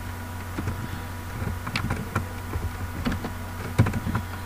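Computer keyboard keystrokes: irregular taps as a word is typed, with a louder keystroke near the end, over a steady low hum.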